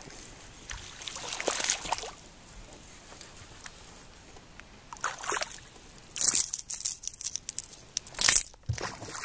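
Water sloshing about a second and a half in, then a hooked bass splashing at the surface beside a kayak in a run of sharp splashes over the last few seconds, the loudest as it is lifted out of the water.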